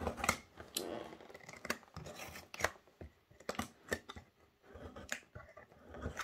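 Cardboard shipping box being handled and its packing tape cut with a box cutter: irregular sharp clicks, taps and scrapes.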